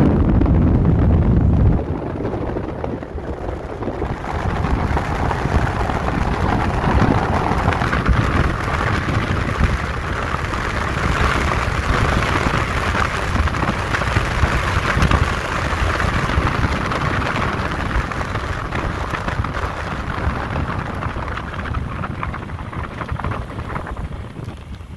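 Wind rushing over the microphone, with road noise, on a motorcycle at speed of about 80 km/h. Heavy low buffeting for about two seconds, then a steady hiss that builds toward the middle and eases off near the end.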